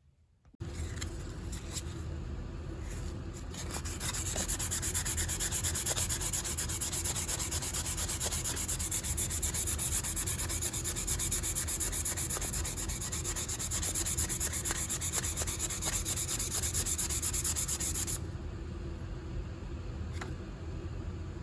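Continuous abrasive rubbing, as when sanding or scrubbing the metal body of a Stanley utility knife, starting just after the opening and getting louder and harsher from about four seconds in until shortly before the end.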